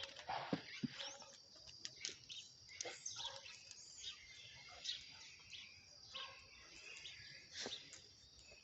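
Quiet outdoor ambience: scattered short bird chirps over a steady high insect trill, with a few soft clicks.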